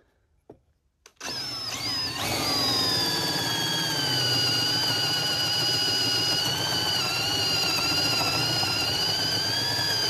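Cordless drill starting about a second in, its motor whine rising briefly as it spins up and then running steadily as the bit bores a shallow countersink into a hardwood deck board.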